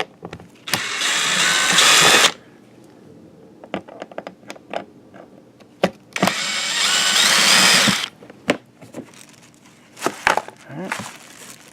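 Power screwdriver backing out the two screws that hold the generator's side panel, one run of whirring about a second in and another about six seconds in, each lasting about a second and a half. Light clicks and knocks of handling between them.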